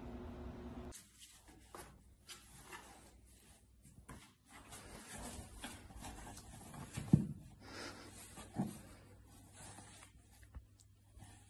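Faint scratching and rustling of a cat shifting about in a cardboard box, with a sharp knock about seven seconds in and a softer one shortly after.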